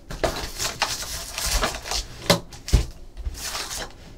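Foil-wrapped trading card packs rustling and crinkling as they are pulled out of a cardboard hobby box and stacked on a table, with a couple of sharp taps a little past two seconds in as packs are set down.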